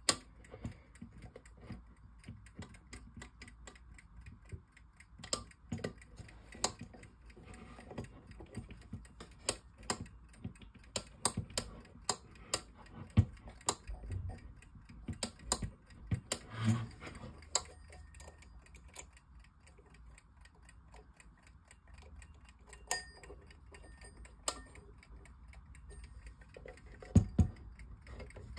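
Antique Waterbury single-bell alarm clock being handled and fiddled with: irregular clicks and small knocks from its mechanism and case, a few louder knocks near the end. The alarm bell does not ring; the alarm is failing to go off.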